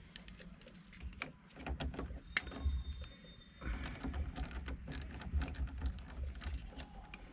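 A wrench working the 10 mm nuts on a car battery's terminals and hold-down, making irregular clicks and knocks with low thumps from handling the parts.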